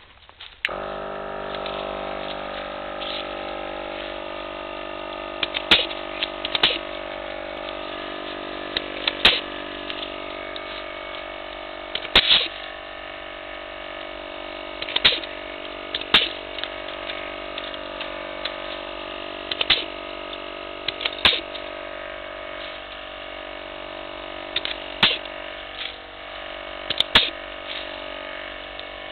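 Battery-powered air compressor starts up and runs with a steady hum while pneumatic pruning shears snap shut through fruit-tree branches about a dozen times.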